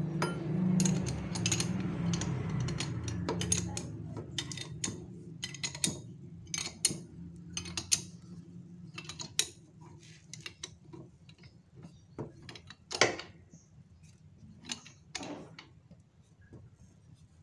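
Socket wrench turning the nut of a homemade piston-pin puller, with irregular small metal clicks and ticks as it slowly draws a piston pin, seized from running out of oil, out of a Yamaha Mio scooter piston. The clicks are denser in the first few seconds, and one is sharper about thirteen seconds in.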